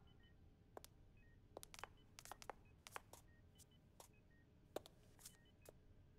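Faint electronic beeps from computer terminals, repeating in short two- and three-note patterns, with scattered light clicks.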